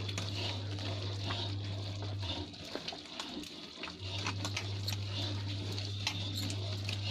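A hand beating thick gram-flour batter in a steel bowl: wet squelching and slapping with many quick clicks. A low steady hum underneath stops a little over two seconds in and comes back about four seconds in.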